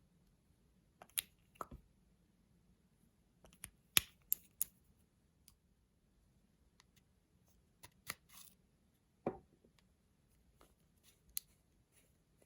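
Clear slime being worked by hand: sparse sharp clicks and little pops, with a couple of short squishes about two seconds in and again near nine seconds.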